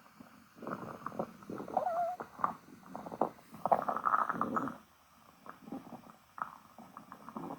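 Stomach growling: irregular gurgles and rumbles, with a short wavering squeak about two seconds in and a brief lull near five seconds.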